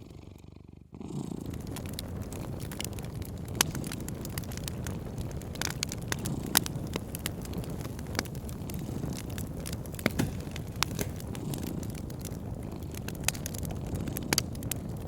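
A cat purring steadily over a crackling wood fire, with sharp pops and snaps scattered throughout. The sound dips briefly within the first second, then picks up again.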